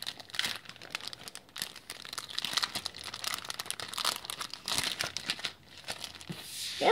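Clear plastic packet crinkling as it is handled and turned over in the hands, a string of irregular crackles.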